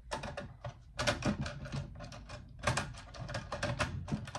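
Irregular clicking and knocking of a plastic control-box cover being worked down over a circuit board and its wires, with several quick clicks in a row about a second in and again near the end.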